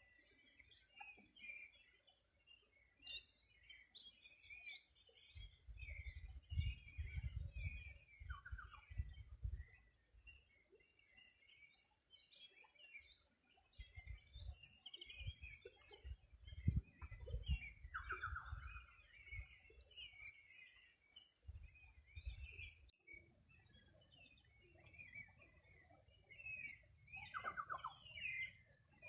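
Several small songbirds chirping and singing together in a continuous chorus, with a buzzy trill repeated three times and a thin high drawn-out note about two-thirds of the way through. Bursts of low rumble come and go underneath.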